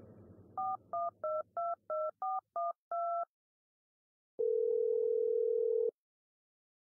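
A phone number keyed in: eight quick two-tone keypad beeps, then the line's ringing tone as the call goes through, one steady burr of about a second and a half.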